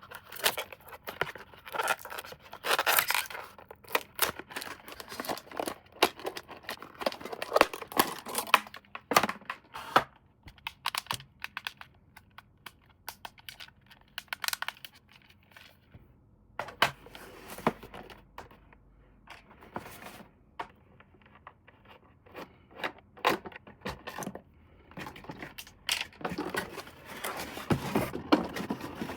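Toy packaging being torn open and handled: tearing, scraping and crinkling, with many small clicks and knocks. There is a quieter spell about two-thirds of the way through.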